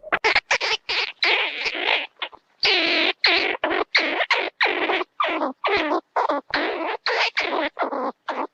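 Old cartoon sound effect: a rapid run of short, squeaky chattering bursts, about four or five a second, like sped-up gibberish or a small creature's chatter.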